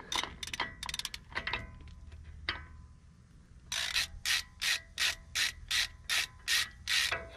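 Ratchet clicking as the last spindle nut on a Dana 60 front hub is loosened with a spindle-nut socket: a few uneven clicks at first, then a steady run of about three clicks a second for the last few seconds.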